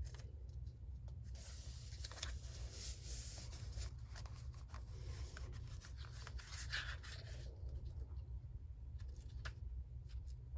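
Paper being handled for a collage journal: about six seconds of continuous paper rustling, with small clicks and taps before and after.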